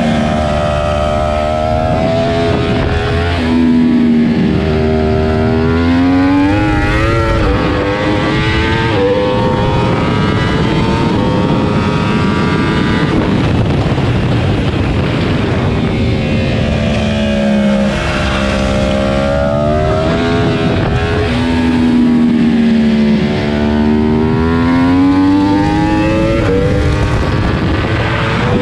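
Yamaha R1 inline-four sport-bike engine at racing speed, its pitch climbing hard under throttle and dropping on braking and downshifts several times, over a steady rush of wind noise. Around the middle the engine tone gives way to wind noise for a few seconds.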